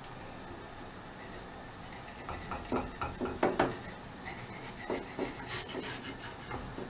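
Wooden spatula scraping and knocking against an iron tawa, working under the edge of a cooking thalipeeth to loosen it before flipping. For the first two seconds only a faint steady hiss is heard, then a string of short, irregular scrapes and taps.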